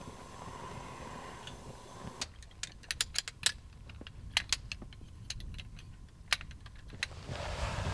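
Steady vehicle running noise for about two seconds, then an irregular run of sharp metallic clicks and clinks, like keys or small hard objects knocking together.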